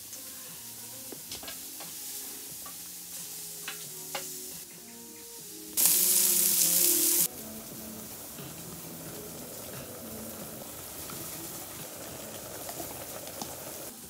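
Food frying and sizzling, with scattered light clicks and soft background music underneath. A loud hiss cuts in about six seconds in and stops abruptly about a second and a half later.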